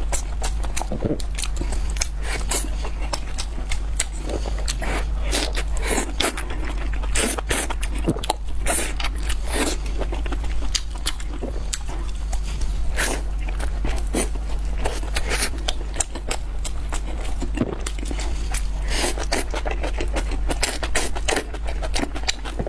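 Close-miked eating: irregular crunchy bites and chewing with crackles and scrapes, over a steady low hum.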